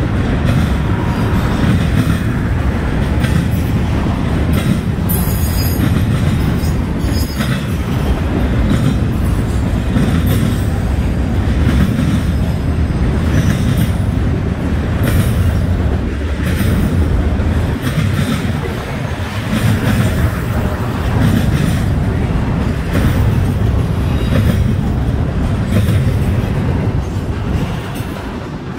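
Freight train rolling past: a loud, steady rumble of wheels on rail with irregular clicks as wheels cross rail joints, easing off slightly near the end.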